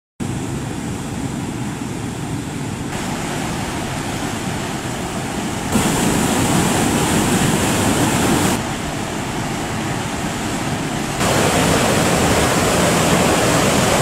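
Steady rushing water, with no tones in it. It gets abruptly louder about a third of the way in, drops back about halfway through, and jumps up again near the end.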